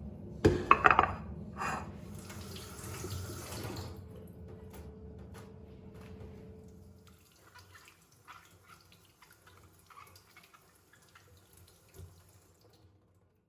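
Water running from a tap into a sink, with a few loud knocks in the first two seconds. The flow fades out after a few seconds, leaving only small clicks and handling sounds.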